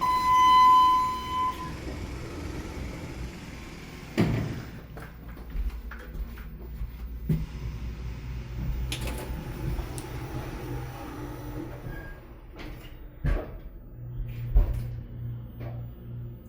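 ThyssenKrupp passenger elevator in use: a single steady beep lasting about a second and a half, a knock about four seconds in, then the doors sliding and the car running with a low rumble. A few knocks and a steady low hum come near the end.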